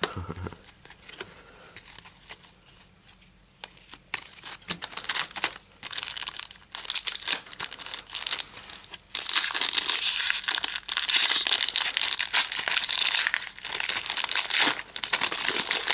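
Foil wrapper of a Topps Chrome trading card pack being crinkled and torn open: a few faint rustles at first, then loud, continuous crinkling from about nine seconds in.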